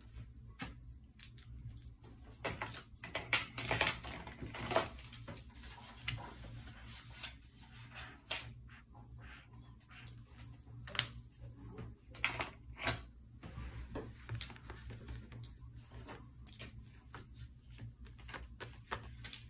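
Pen writing on journal paper, with irregular small taps and clicks from pens and hands on the notebook, busiest a few seconds in.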